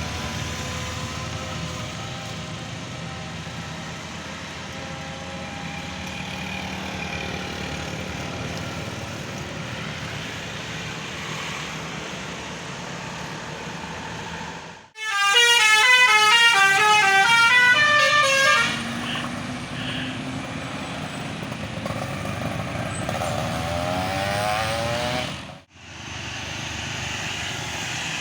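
Bus 'basuri' telolet horn playing a quick tune of stepping notes for about three and a half seconds, partway through and louder than everything else. Before and after it, steady road traffic and bus engine noise.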